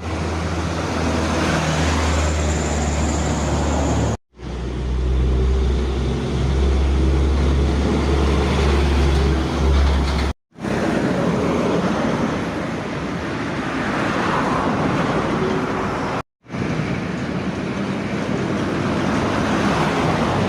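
Motor vehicle engines running amid road traffic noise, in four short clips with abrupt cuts between them. The first two clips carry a heavy, steady low engine drone; the later ones are busier traffic noise.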